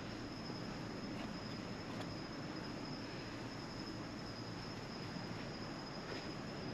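Crickets trilling steadily in one unbroken high-pitched note, over a low background rumble.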